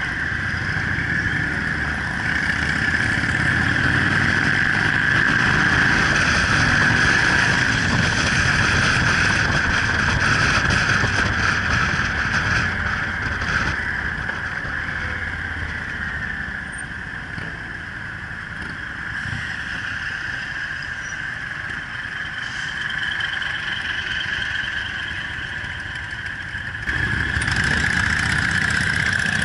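Motorcycle engine running on the road, heard from the bike itself with road and wind noise, among other motorcycles riding in a group. The sound eases in the middle and jumps suddenly louder near the end.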